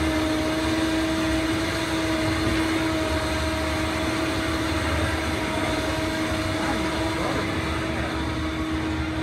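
Electric winch motor running with a steady, unchanging whine, lifting the toy hauler's bedroom wall.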